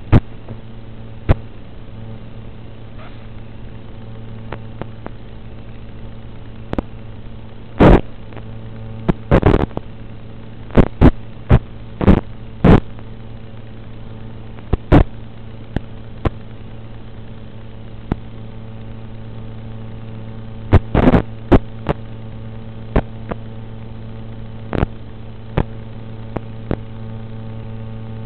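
Steady low electrical hum from an FPV video receiver's recorded audio channel, broken by sharp crackling pops, with clusters about eight to thirteen seconds in and again about twenty-one seconds in.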